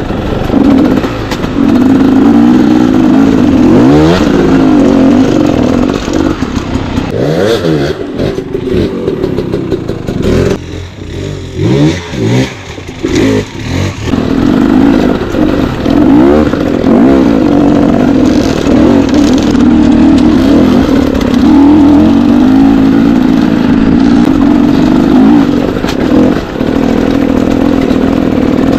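Dirt bike engine revving up and down with the throttle as it is ridden. It eases off for a few seconds near the middle, then pulls hard again.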